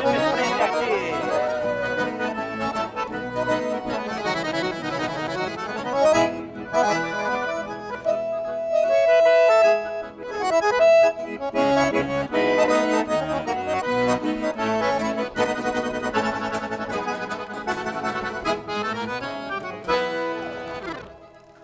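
Accordion playing the instrumental ending of a lively traditional Brazilian country song, with held and running notes. The music stops just before the end.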